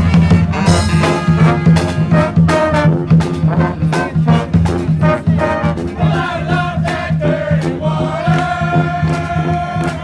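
Live brass band (saxophones, trumpets, trombones, sousaphone and drums) playing a lively tune over a steady drum beat. Toward the end the horns hold long notes.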